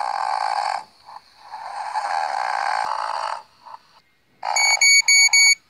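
A child imitating a doll's snoring: two long, rasping snores. About four seconds in, an electronic alarm starts beeping in a quick group of four high beeps, the wake-up alarm going off.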